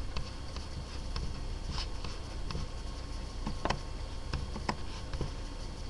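Steady low hum and hiss of a quiet small room, with scattered faint clicks and taps, the clearest a little past the middle.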